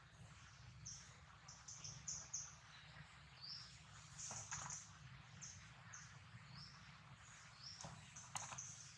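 Faint bird chirping: short high chirps, several a second, mixed with a few falling notes, over a low steady hum, with a few soft clicks.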